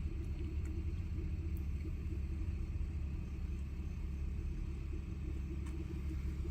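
Steady low rumble of an idling vehicle engine, even in level throughout, with a couple of faint light clicks.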